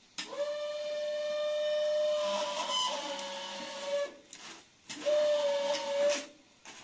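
A young girl's voice holding one long, steady high note for about four seconds, then again for about a second after a short break. In the gaps come brief swishes of a straw broom on the rugs.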